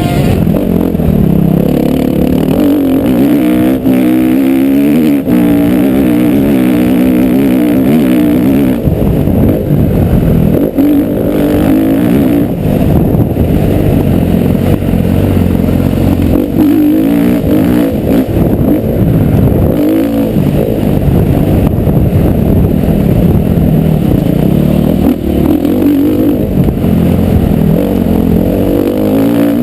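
Motocross bike engine running hard under load, its pitch repeatedly climbing and dropping as the throttle is opened and shut and the gears change.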